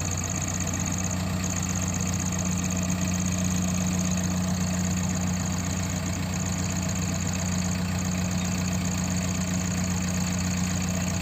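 The diesel engine of a JCB 3DX backhoe loader running steadily at idle: an even, deep hum with no change in speed.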